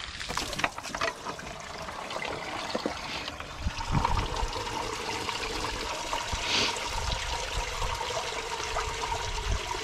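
Water running from a garden hose into a car's cooling system and trickling and splashing out during a coolant flush. A few knocks early on as the hose is pushed into place, then a steady flow with a faint, even whistle from about four seconds in.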